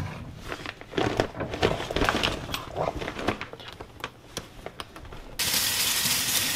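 Rapid sharp clicks and taps of live crabs' shells and legs against a stainless steel sink and each other as they are handled. About five seconds in, the kitchen faucet is turned on and water runs steadily into the metal sink.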